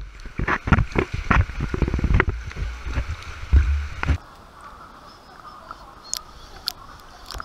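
Pool water sloshing and splashing against a waterproof action camera held at the surface, loud and irregular with a heavy low rumble. About four seconds in, the camera goes under and the sound turns to a quieter, muffled underwater hiss with a few sharp clicks.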